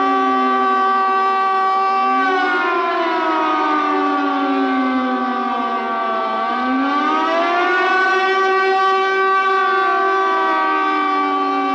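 Tsunami warning siren sounding a loud, steady wail of several tones at once. Some of its tones slide down in pitch, rise again around the middle, and slide down once more near the end.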